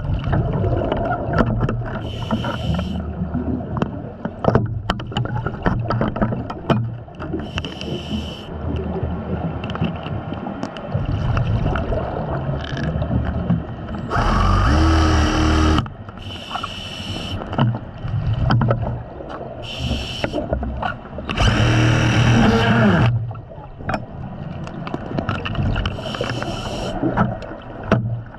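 Diver breathing underwater: hissing bursts from the breathing regulator every few seconds and longer rushes of exhaled bubbles, the loudest about 14 and 22 seconds in, over a continuous rumble with scattered crackling clicks.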